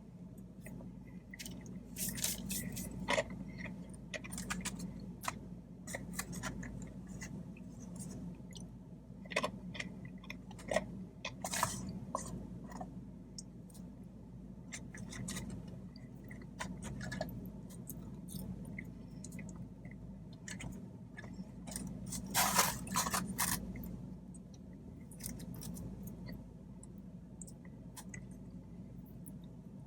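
A person chewing and eating food, with irregular wet mouth clicks and smacks and a few light scrapes, over a steady low hum.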